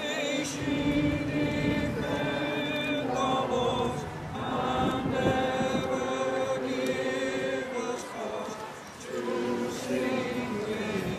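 A large crowd singing together, slow held notes in unison, with a short breath-like dip near the end.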